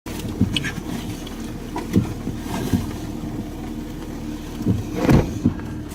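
Vehicle cabin noise: a steady low engine hum and rumble, with a few short knocks, the loudest about five seconds in.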